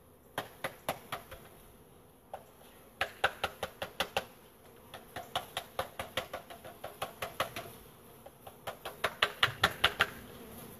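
A bee package crate knocked in quick bursts of sharp raps, about four to six a second, to shake the bees out of it into the hive. A swarm of honeybees buzzes underneath.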